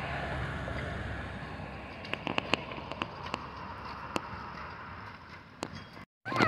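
Steady outdoor rush, then from about two seconds in a scatter of irregular crackles and snaps from dry fallen leaves crunching underfoot on a sidewalk. The sound drops out abruptly near the end.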